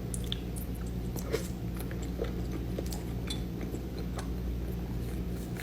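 A person chewing a soft pastry, with small scattered wet mouth clicks over a steady low background hum.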